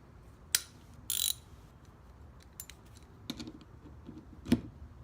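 Hand tools on a brake caliper's parking-brake assembly: a few sharp metal clicks, with a brief ratcheting about a second in. A loud knock comes near the end.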